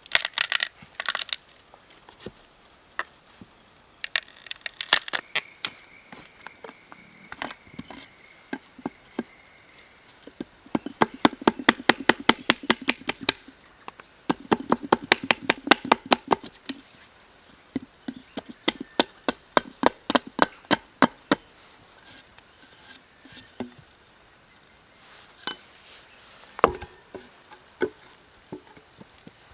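Sharp wooden knocks and taps, as of a tool striking wood. They come scattered at first, then in two quick runs of about six strikes a second near the middle, then a few more strikes.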